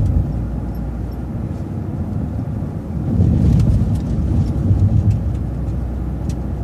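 City bus engine and road rumble, heard from on board as the bus drives along, getting louder for a couple of seconds about three seconds in.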